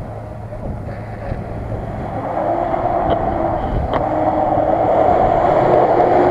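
Off-road pickup truck's engine working under load as it churns through deep mud ruts, growing steadily louder as the truck approaches.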